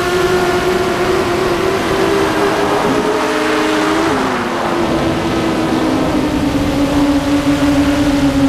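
Radio-controlled model plane's motor and propeller running at a steady high pitch, heard from the onboard camera with rushing air noise; about halfway through the pitch drops and keeps sliding slowly lower.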